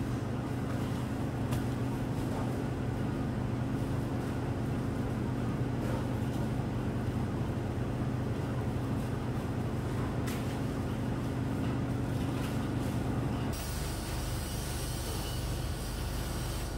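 Steady low machine hum, with a few faint clicks over it. About three-quarters of the way through it changes abruptly to a steady hiss over a lower hum.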